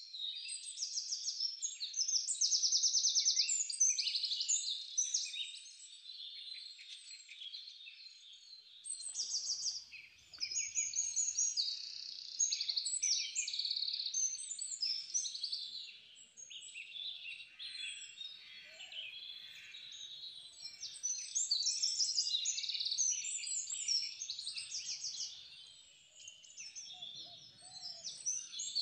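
Many small birds chirping and trilling at once, a dense overlapping chorus of quick high calls that swells and fades.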